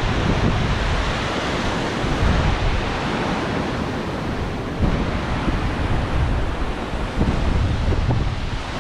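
Strong wind blowing over the microphone: a steady rushing noise with uneven, gusty low-pitched buffeting.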